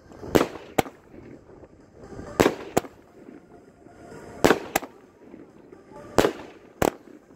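A 19-shot 500 g consumer fireworks cake firing. Sharp bangs come in pairs, four pairs about two seconds apart.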